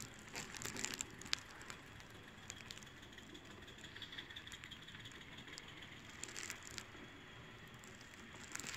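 Live steam model of Talyllyn Railway locomotive No. 1, 1:19 scale, running along the track with irregular clicking and light mechanical rattling from its wheels and running gear.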